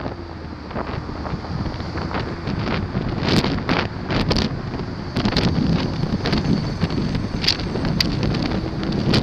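Wind rushing and buffeting against the microphone of a camera on a moving motorcycle, with the motorcycle running underneath, punctuated by sharp crackles from gusts hitting the mic. It gets a little louder about five seconds in.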